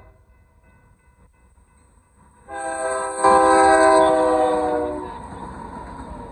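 Union Pacific freight locomotive's multi-note air horn blowing a long blast about two and a half seconds in as the lead engine reaches the crossing. Its chord slides a little lower in pitch as it passes and stops about five seconds in, leaving the steady rumble of the train rolling through.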